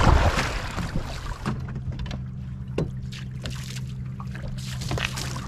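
A boat motor starting up about a second and a half in, then running with a steady low hum. A brief rush of noise comes before it, and a few light knocks sound over it.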